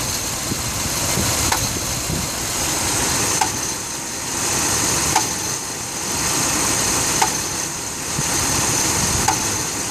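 2006 Dodge Ram 1500's 5.7 L V8 idling cold with a knocking noise, which shows only when the block is cold and sets no engine light. A sharp tick about every two seconds stands out over the steady running.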